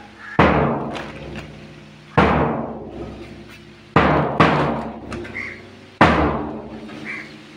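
Large drum beaten in a slow, steady beat, about one stroke every two seconds, each stroke ringing out and dying away; two strokes fall close together near the middle.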